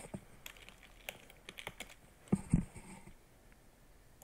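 Typing on a computer keyboard: scattered light key clicks, with two louder knocks a little past halfway.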